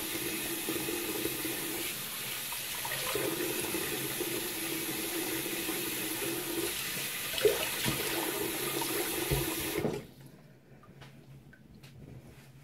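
Water running from a bathroom sink tap, with splashing as the face is rinsed. The water is shut off about ten seconds in, leaving only faint small knocks.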